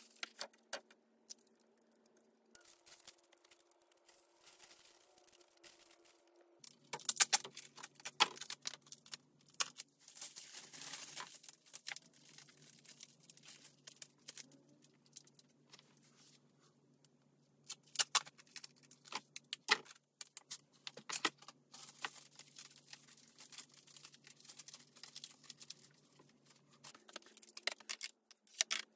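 Aluminium foil crinkling and rustling as it is handled, with irregular sharp crackles and clicks in clusters, loudest about seven seconds in and again around eighteen to twenty-one seconds.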